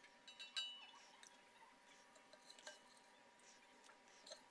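A metal spoon clinks against the pressure cooker pot and the serving plate while lamb stew is lifted out. There is a quick cluster of light, ringing clinks about half a second in, then a few faint knocks.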